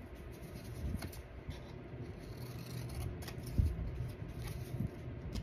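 Scissors making a few separate snips through a small kraft-paper tag, with a dull thump against the table about three and a half seconds in.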